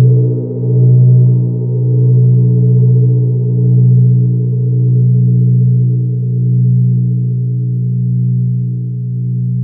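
Large hammered gong struck once with a soft round mallet at the very start, then ringing on in a deep hum that swells and ebbs every second or so as it slowly fades.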